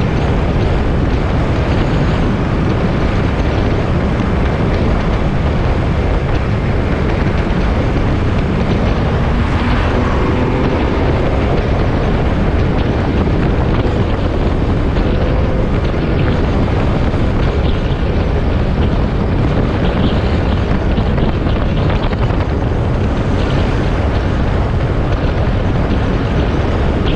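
Wind rushing over the microphone of a GoPro mounted on a moving motorcycle, with the motorcycle's engine and tyre noise running steadily underneath. A faint rising tone comes in about ten seconds in.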